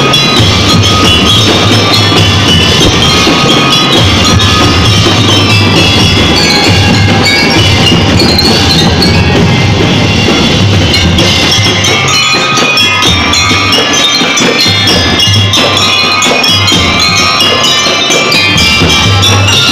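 Drum-and-lyre corps playing loudly: many hand-carried glockenspiels and other mallet-struck bar instruments ring out a fast melody of short notes over a steady bass drum pulse.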